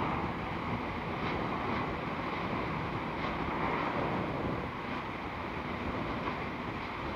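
Steady rushing noise of wind blowing across the phone's microphone.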